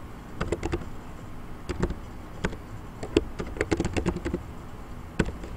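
Typing on a computer keyboard: keys clicking in short, irregular runs.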